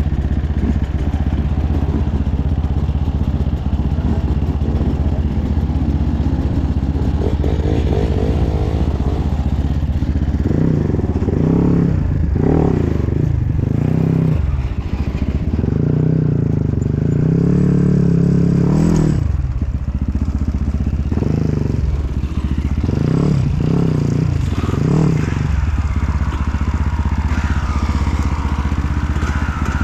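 Off-road dirt bike engine being ridden, revving up and dropping back over and over. The engine pitch dips sharply when the throttle closes about nineteen seconds in.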